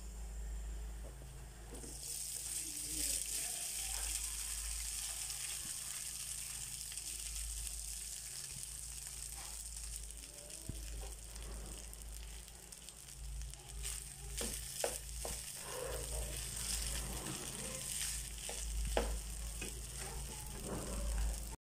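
Garlic and rice sizzling in hot oil in a frying pan, making sinangag (Filipino garlic fried rice); the sizzle starts about two seconds in and stays steady. From a little past the middle, a spatula scrapes and knocks against the pan as the rice is stirred.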